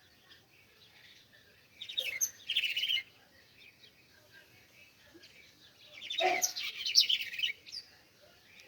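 Small birds chirping in two busy bursts of quick, high chirps, one about two seconds in and a longer one around six seconds in.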